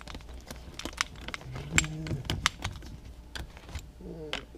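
Small metal bike parts and tools being handled: a run of light, irregular clicks and taps.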